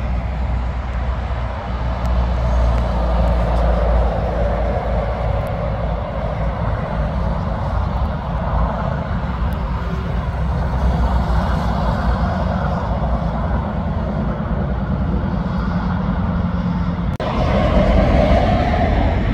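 Diesel truck passing on a highway: a Volvo FH tanker rig's engine and tyres making a steady drone as it drives away. About 17 seconds in the sound cuts to a Mercedes-Benz Actros truck approaching, a little louder.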